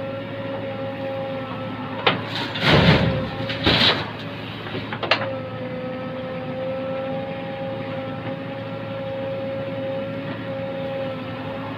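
JCB Eco Xpert Xtra backhoe loader's diesel engine running steadily with a high whine. A few loud clanks and rushing, scraping noises come between about two and five seconds in, typical of the bucket working the mud.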